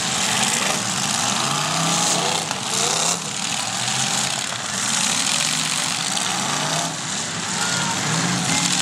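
Several demolition derby cars' engines running and revving up and down together, in a dense, continuous din.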